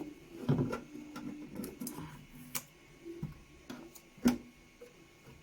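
Hands peeling packing tape off a plastic filament dryer: scattered light clicks, taps and small squeaks of tape and plastic, with one sharper click about four seconds in.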